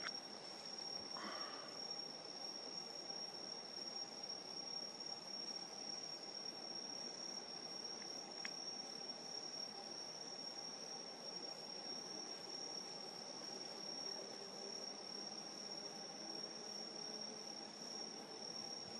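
Crickets trilling in one steady, unbroken high-pitched chorus, with a fainter rapid pulsing of other insects above it.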